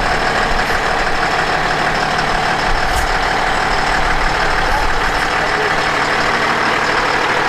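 A fire engine's diesel engine running steadily at low revs as the truck creeps slowly out of the station bay.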